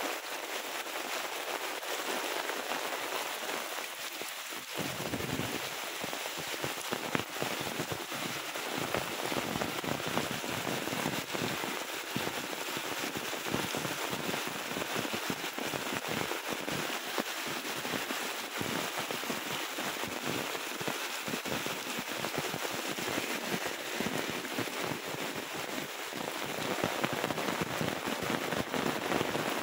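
Heavy rain falling steadily, a dense patter of drops hitting surfaces.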